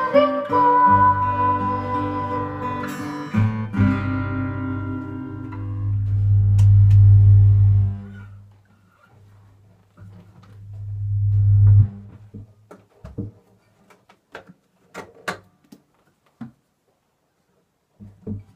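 Acoustic guitar music ringing out as the song ends, followed by two deep low swells; the second builds and then cuts off suddenly. Scattered faint clicks and knocks follow.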